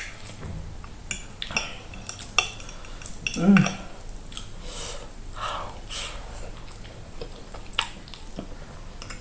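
Cutlery clinking and scraping against a plate in a series of sharp, irregular clicks while eating pasta, with one short vocal sound about three and a half seconds in.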